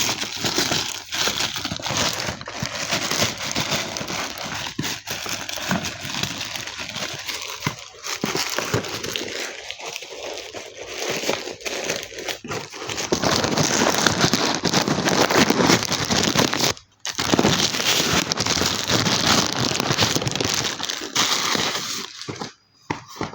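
Plastic packaging crinkling and rustling as a parcel is handled and opened by hand, nearly continuous, with a short break about seventeen seconds in and dying away near the end.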